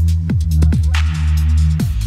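Electronic background music with a heavy, sustained deep bass and repeated booming drum hits that drop in pitch, with a hissing swell about a second in.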